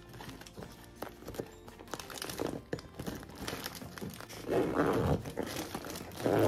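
A clear plastic toiletry bag crinkling and rustling as items are pushed into it and pressed down, in irregular small crackles with a louder rustle about five seconds in.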